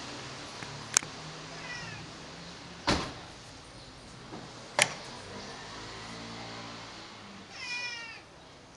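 White cat meowing at a closed door, waiting to be let in: a faint short meow about two seconds in and a louder, longer meow near the end. Three sharp clicks stand out along the way, about two seconds apart.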